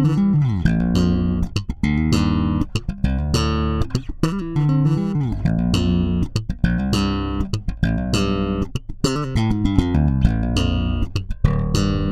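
Electric four-string bass guitar (Gopherwood) playing a melodic riff. It is plucked notes with sharp attacks, a few pitch slides, and a bright tone with volumes at full and the tone knob at 35%.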